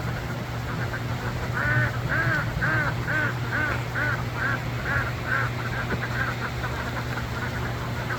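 Ducks quacking, a quick run of about two quacks a second that starts nearly two seconds in and fades toward the end, over a steady low hum.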